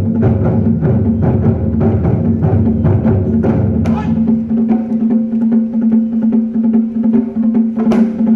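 Live drum ensemble playing a fast, even pattern of strokes over a steady held tone. The deep drums drop out about three and a half seconds in, and there is one sharp, bright strike near the end.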